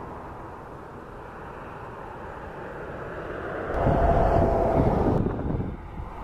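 Jet engine noise from a Boeing 757 rolling down the runway: a steady rumble that gets louder about four seconds in, with a steady whine. It cuts off abruptly about a second later, leaving a quieter background rumble.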